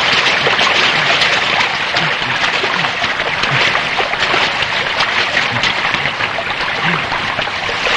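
Shallow stream running over rocks, a steady rushing of water, with small splashes as water is scooped up by hand.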